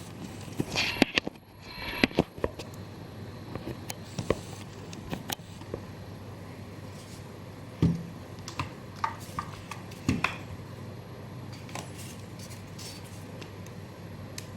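Handling noise from a handheld smartphone gimbal: scattered clicks and light knocks as its buttons are pressed and it is moved about, with two heavier thumps in the second half. A steady faint hum runs underneath.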